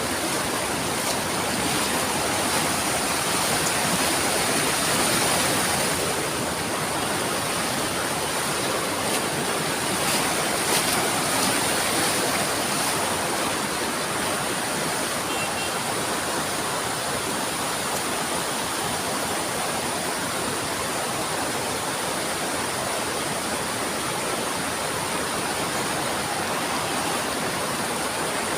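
River water rushing steadily over a small waterfall, with a thin steady high tone above the rush.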